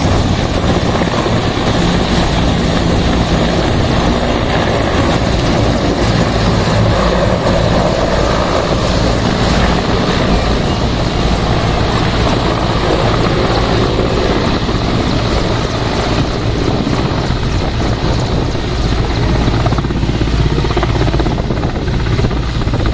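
Large military transport helicopters with their rotors and turbine engines running steadily and loudly as they lift off and fly away.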